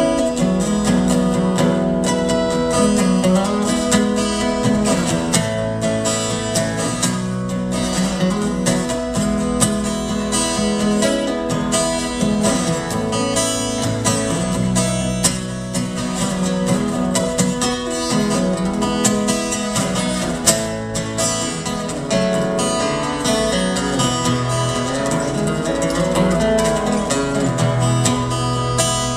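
Solo acoustic guitar played fingerstyle: a continuous run of picked notes over held bass notes, without singing.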